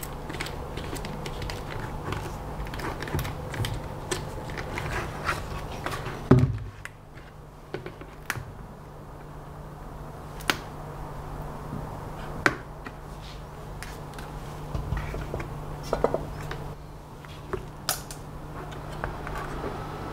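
Handling noises from a black plastic bucket being turned and worked on while an LED strip is fitted inside it: scattered clicks, taps and rustles, with one louder knock about six seconds in. A steady low hum runs underneath.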